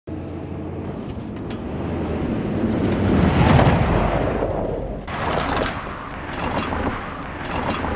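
Street traffic: a vehicle passes, its sound swelling to a peak about three and a half seconds in and fading, over a steady low rumble.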